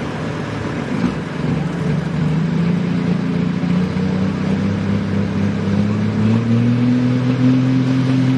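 International 5488 pulling tractor's diesel engine running at the start line, its pitch climbing slowly and steadily as the revs are brought up before the pull.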